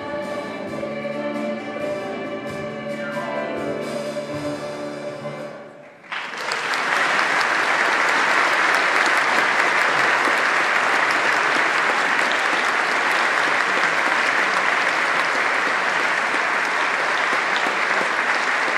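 A group of singers with instrumental accompaniment finishes a song, and the music dies away about six seconds in. An audience then breaks into loud, steady applause.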